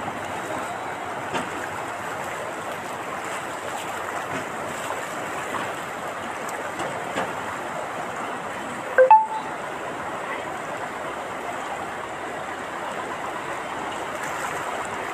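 Floodwater rushing along a street, a steady noisy wash of flowing water, with one brief sharp sound about nine seconds in.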